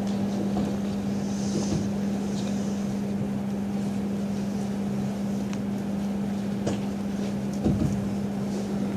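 A steady low hum over a constant rushing noise, with a few faint knocks.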